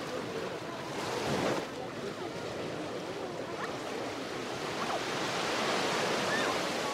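Small waves washing onto a shingle beach, swelling about a second in and again near the end, with faint distant voices.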